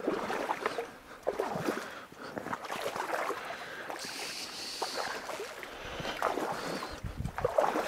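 Water splashing and reed stems rustling and brushing as someone pushes through a flooded reed bed, with scattered short clicks and crackles.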